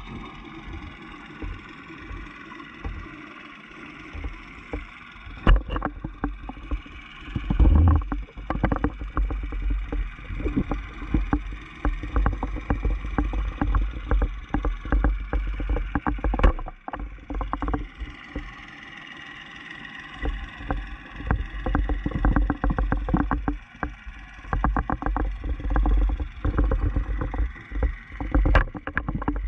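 Muffled underwater noise picked up by a GoPro in its waterproof housing: a steady low rumble with spells of dense crackling, the diver's exhaled bubbles streaming past, and a few sharp clicks of the housing knocking.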